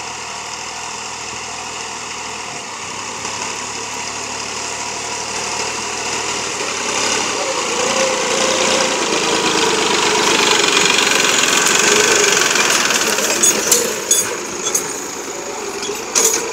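Massey Ferguson 9500 tractor's diesel engine running steadily under load while ploughing, growing louder as it comes close by. A few short sharp knocks near the end.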